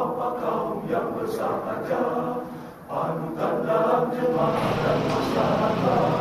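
A group of voices singing together like a choir, in held phrases with a short break a little before the middle.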